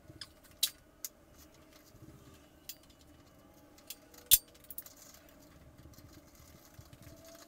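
Scattered metallic clinks and taps of a ratchet wrench and a steel flywheel puller as the puller is fitted and tightened on an outboard motor's flywheel, with one sharp, loud clink a little over four seconds in.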